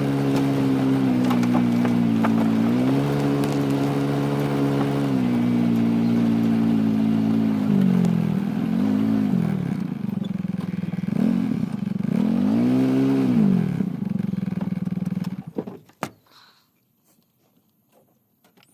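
A vehicle engine running, its pitch stepping up and down and then rising and falling several times, cut off abruptly near the end.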